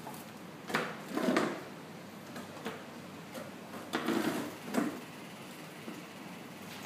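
Handling noises on a tabletop: four brief scuffs and knocks as hands work a rolled towel and pick up small tools. Two come about a second in and two more around four seconds in.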